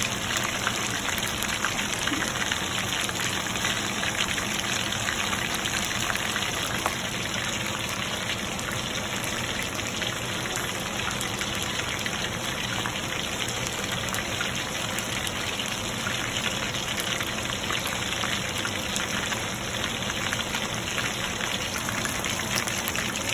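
Chicken lollipops shallow-frying in oil in a pan: a steady sizzle, with a few faint ticks of crackling.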